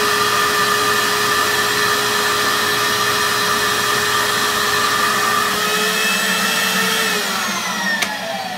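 Shop-Vac wet/dry vacuum running steadily with a high whine as it sucks floodwater off a basement floor. About seven seconds in it is switched off, and its whine falls as the motor spins down, with a couple of clicks near the end.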